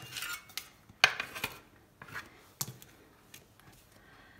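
Bread dough being cut and handled on a granite countertop: a few sharp taps and light scraping against the stone, the loudest tap about a second in.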